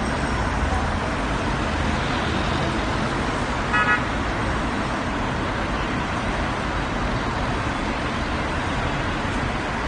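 Steady road traffic rumble, with one short car horn toot about four seconds in.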